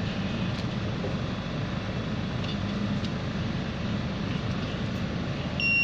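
Fresh-orange-juice vending machine running with a steady low hum; near the end a high electronic beep starts, the signal that the juice is done and the cup can be taken.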